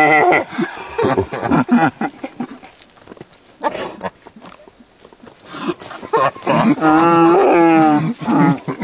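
A man's voice making long, wavering wordless sounds: one at the start and two more near the end, each lasting one to two seconds. Scattered short clicks come in between.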